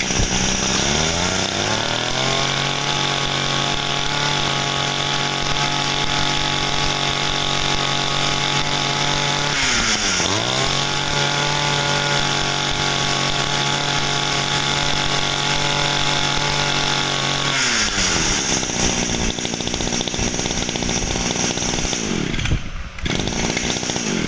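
Small 20 cc two-stroke brush cutter engine revved up to a high steady speed, dipping briefly about ten seconds in and revving back up, then dropping to idle and cutting out near the end.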